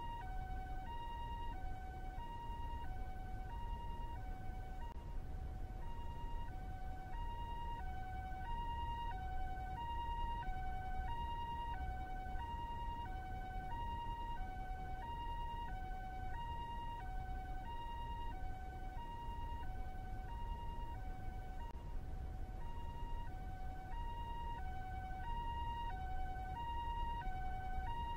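Japanese-style two-tone ambulance siren alternating evenly between a higher and a lower note, roughly one high-low cycle a second, over a steady low rumble.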